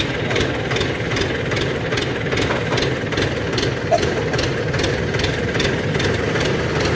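Truck engine running at a steady idle, an unbroken rumble with an even pulse a few times a second.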